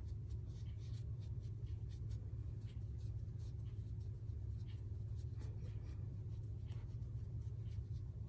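Makeup brush sweeping over the skin of the face in short, soft, scratchy strokes, over a steady low hum.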